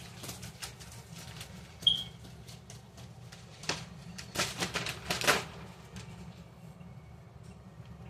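Handling noise from a paper calendar and its packaging: scattered taps and clicks, a short high squeak about two seconds in, and a few bursts of rustling between about three and a half and five and a half seconds in, over a steady low hum.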